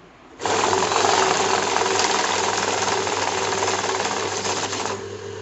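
A banknote counting machine starts abruptly and runs. Its motor hums steadily under a dense, very rapid clatter. The sound drops in level near the end.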